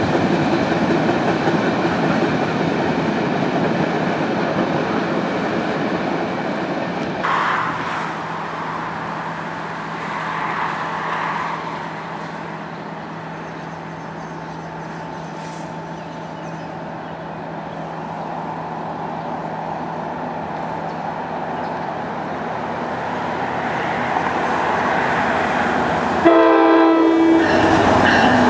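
Freight cars rumbling on the rails as a train pulls away, fading after a few seconds into a quieter steady background with a faint hum. Near the end an NJ Transit PL42AC diesel locomotive sounds a short, loud chord horn blast as it approaches, followed by the louder noise of the locomotive coming in.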